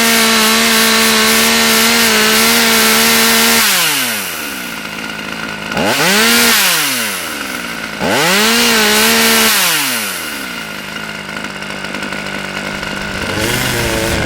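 Husqvarna T540 XP top-handle two-stroke chainsaw held at full throttle at high revs, then let down to idle about four seconds in. It is blipped back up to full revs twice, briefly each time, and then settles to a steady idle.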